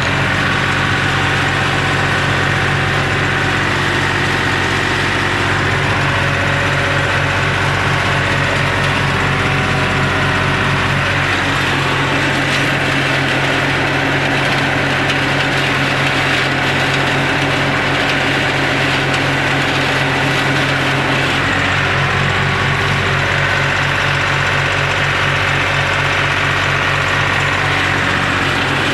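Tractor engine running steadily at constant speed, driving a Maschio BC 160 rear-mounted shredder through the PTO.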